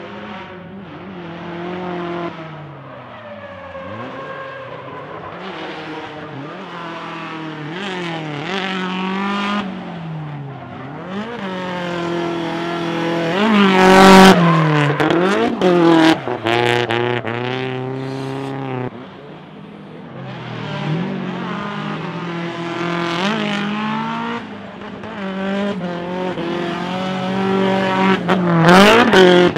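Nissan 180SX's SR20 four-cylinder engine drifting, revving up and falling back over and over, with tyre squeal from the spinning rear wheels. It is loudest about halfway through as the car slides past close by.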